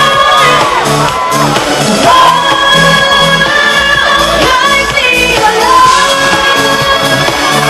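Live pop music: a female singer singing bending, held notes over a band backing with a steady beat.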